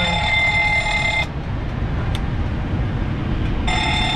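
A steady, high electronic tone of several pitches in a Boeing 737-700 cockpit. It cuts off abruptly about a second in and comes back near the end, over a constant low rumble, with one short click in the quiet gap.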